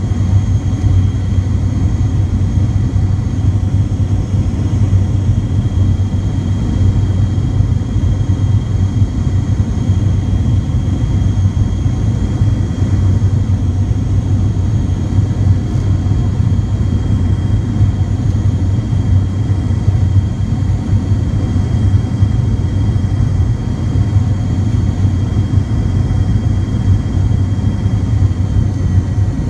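Steady cabin noise inside a McDonnell Douglas MD-88 airliner on final approach: a low rumble of airflow and its rear-mounted Pratt & Whitney JT8D turbofans at approach power, with faint steady high whines over it.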